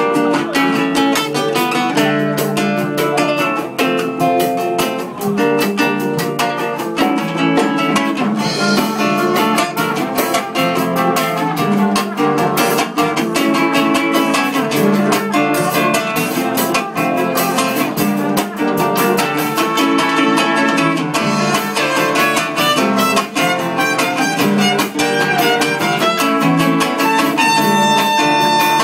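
Live acoustic band music: an acoustic guitar and a smaller round-bodied plucked string instrument strumming and picking a rhythmic tune, with a held higher note near the end.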